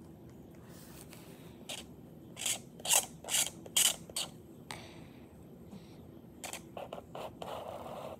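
A marker scratching across sketchbook paper in a run of short quick strokes about two to four seconds in, then softer strokes and a steadier rubbing near the end.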